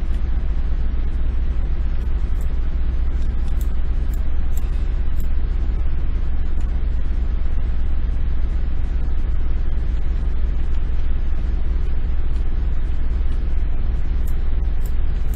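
Steady low hum and hiss of background noise, with scattered short clicks of computer keyboard keys being pressed to steer the viewport camera.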